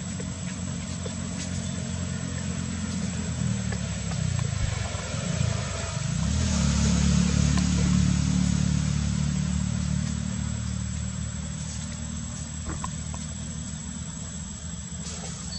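A motor vehicle engine running: a steady low hum whose pitch dips about five seconds in, then grows louder for a few seconds before slowly fading.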